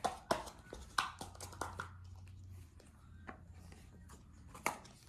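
Small plastic dough tubs being handled: a few sharp clicks and taps of plastic, spaced irregularly, with quiet rustling between them.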